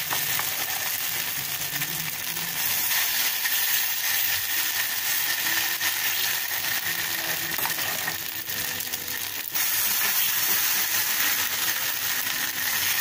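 Coconut-rice batter sizzling in hot oil on a flat metal tawa, a steady hiss, with a steel spoon scraping and clinking against the griddle as the batter is pressed out thin.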